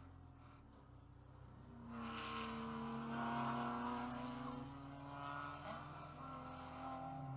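Race car engines heard from inside the cabin: first a low idle, then from about two seconds in a louder, steady engine drone with several held tones as other race cars go past on the track.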